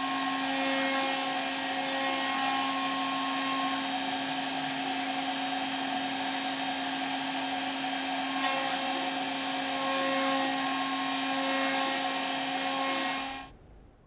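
Air-cooled 2.2 kW spindle motor of a home-built CNC milling machine running at about 18,000 revs a minute, a 1 mm bit milling a metal plate: a steady whine with a constant high hiss. It stops suddenly near the end.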